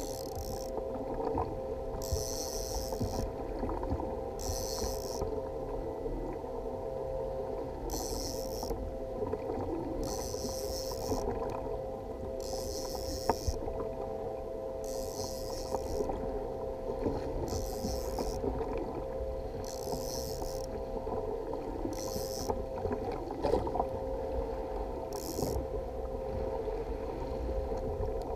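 A yellowfin tuna being fought from a kayak: a rod is pumped and a conventional reel cranked over a steady rumble of sea and wind, with a low hum. Short hissing bursts come every one to two seconds, with an occasional sharp click.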